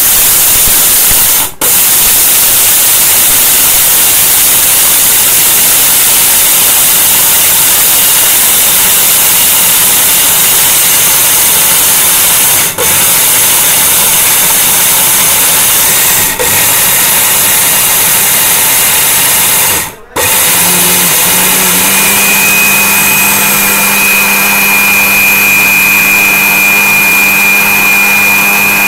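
800-watt Miyako mixer grinder running at full speed, its blades grinding whole wheat grain into flour in a stainless steel jar: a loud, dense grinding noise. The motor briefly cuts out four times, the last about 20 seconds in. After that it runs on with a steady hum and a high whine as the wheat goes to fine powder.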